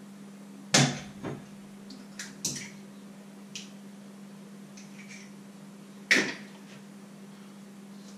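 Kitchenware being handled: a scattering of sharp knocks and clinks, the loudest about a second in and again about six seconds in, over a steady low hum.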